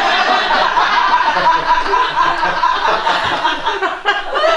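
Theatre audience laughing loudly, a dense crowd of many voices, dying away near the end.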